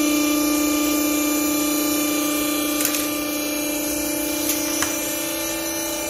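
Hydraulic clothing baler's electric motor and hydraulic pump running with a steady hum, easing slightly in level about halfway through. A few light clicks come near the middle and again about five seconds in.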